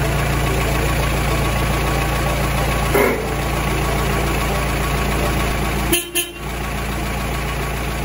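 Mahindra Roxor's 2.5-litre four-cylinder turbo-diesel idling steadily. A brief, louder sound cuts in about three seconds in, and near six seconds the running sound briefly dips with a couple of clicks.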